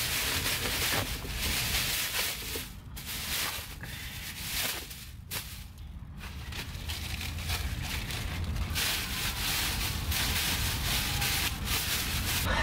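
Plastic trash bags rustling and crinkling as they are pulled over and tucked around car seats, coming and going unevenly with short lulls.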